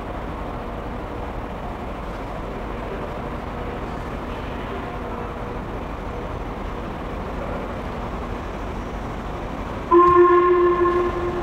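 Steady rumble of the station, then near the end an LMS 'Jubilee' 4-6-0 steam locomotive's whistle sounds once as it approaches: a loud, pitched blast of about a second and a half that fades away.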